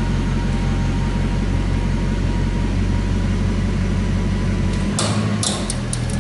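Lexus SC400 on the move with a steady low drone, the car the owner has recorded for a weird wheel noise that comes and goes. About five seconds in there is a sudden rush, then a run of sharp, irregular clicks.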